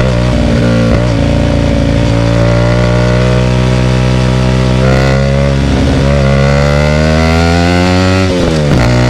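Hyosung GT250R's 250 cc V-twin through a loud aftermarket Ixxile Racing exhaust, revs climbing slowly and steadily for several seconds as the bike accelerates, then dropping sharply near the end.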